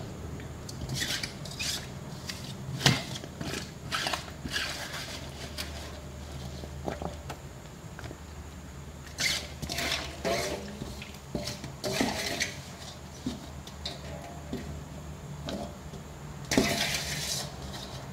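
Sliced fresh bamboo shoots being pressed by hand into a plastic jar, packed tight for fermenting: irregular crunches, rustles and knocks against the jar, the loudest near the end, over a steady low hum.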